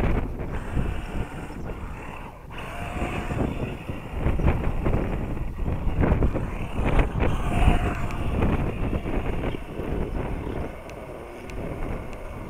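RC scale crawler truck's electric motor and drivetrain straining in surges as it climbs a steep sand bank, with its tyres spinning and flinging sand. Brief whines come about three seconds in and again past the middle, and wind rumbles on the microphone.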